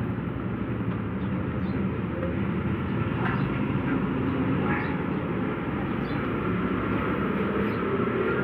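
Steady rumble of nearby street traffic, with a few faint short high chirps.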